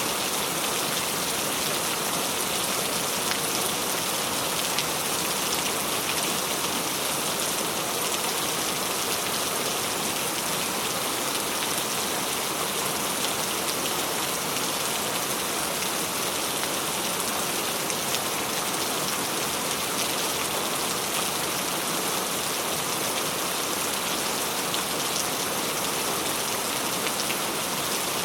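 Steady rain falling and pattering on a surface, an even hiss of many small drops with no breaks.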